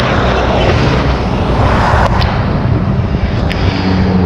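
Motor traffic passing close by on the road. A broad rush of engine and tyre noise swells over the first two seconds as a motorbike goes past. Near the end a van towing a trailer passes with a steady low engine hum.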